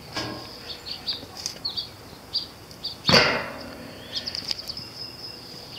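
Small birds chirping in short repeated notes, and about three seconds in one loud clank with a brief ring as the steel barrel smoker is handled.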